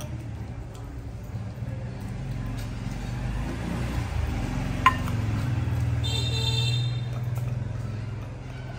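Low rumble of a passing motor vehicle, swelling and then fading, under the clink of a small glass baby bottle and its cap being handled, with one sharp clink about five seconds in. A brief high squeal comes near the end.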